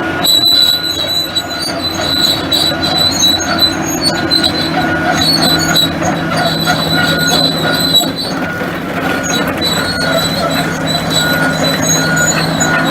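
The diesel engine of a 2002 Hitachi ZX450LC excavator runs steadily under a low hum while the machine is worked. Over it, a high-pitched metallic squeal repeats in short pulses throughout.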